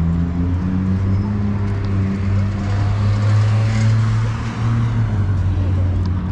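City street traffic: a vehicle engine running close by with a steady low hum, and a car passing about three to four seconds in.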